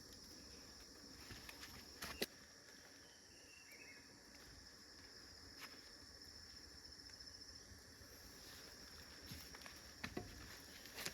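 Faint insects in the forest, chirring in a steady high-pitched trill, with a few soft clicks about two seconds in and again near the end.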